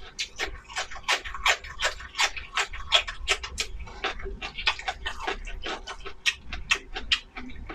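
Close-miked eating: wet chewing and lip-smacking of braised pork rice, a quick irregular run of sharp mouth clicks, about four a second.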